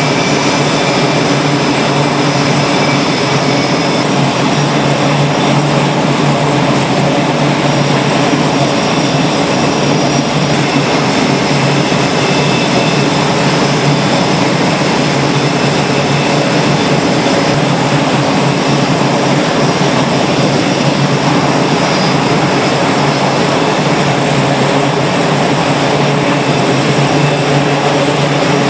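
F/A-18 jet engines running steadily: a loud, constant rush with a low hum and a few steady high tones over it.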